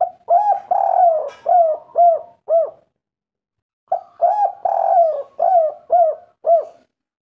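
Spotted dove cooing: two phrases of six or seven short arched coos each, the second starting about four seconds in. Each phrase closes on three separate short coos, the 'kuk 3' song type that keepers prize.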